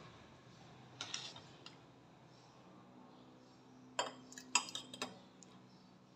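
A steel spoon lightly clinking and scraping against a glass jar as thick chutney is spooned in: one light clink about a second in, then a quick cluster of clinks about four to five seconds in.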